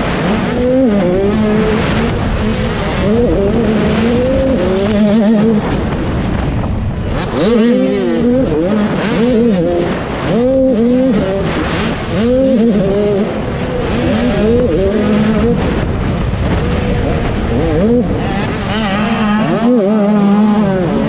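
Dirt bike engine heard from on board while racing, its pitch climbing and dropping about once a second as the throttle is opened and rolled off and the gears change.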